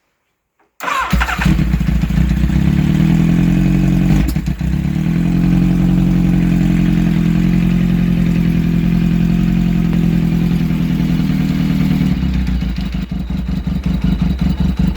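Yamaha FJ1200's air-cooled inline-four engine catching about a second in and then idling, with a brief dip about four seconds in and an uneven, stumbling beat near the end. The owner puts the poor running down to a fuel tank and hoses that need cleaning, carburettors that need adjusting and plugs that need attention.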